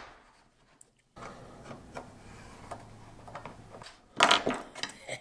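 Faint rubbing and light knocks of a ruler, pen and magazine gauge being handled on a wooden tabletop, with a louder brief burst of noise about four seconds in. The first second is almost silent.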